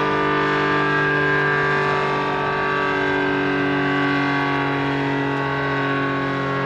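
ACA Screamer S-10 outdoor warning siren sounding a steady, multi-note wail. Its pitch sags a little, then rises again near the end as it is powered back up. The uploader puts its weak, mild sound down to broken-out intake holes in the top lid, which starve it of air, and a reverse-wired motor spinning the rotor the wrong way.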